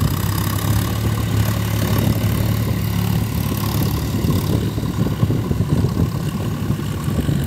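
Farm tractor's diesel engine running steadily, pulling a rotary tiller through a flooded paddy field.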